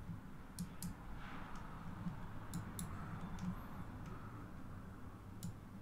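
Computer mouse clicking a few times, some clicks in quick pairs, over a low steady hum.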